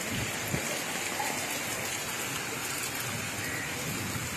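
Heavy rain falling steadily on a flooded street, a constant hiss of drops hitting standing water.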